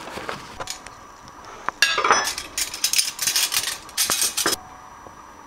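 Metal cutlery clinking and rattling against china plates as a table is set, a dense clatter of a few seconds that stops abruptly, with a few light clicks before it.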